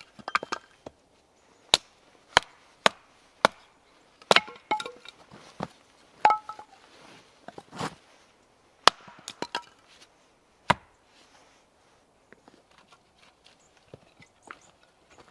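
Hatchet splitting thin kindling sticks on a wooden chopping block: about a dozen sharp chops at uneven intervals. The chopping stops about 11 seconds in, leaving only faint light knocks.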